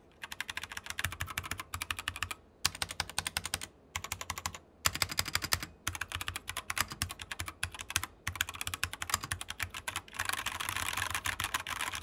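Typing on a YUNZII KC84 75% mechanical keyboard with Gateron brown switches and double-shot PBT keycaps: quick runs of key clicks broken by short pauses, running on without a break near the end.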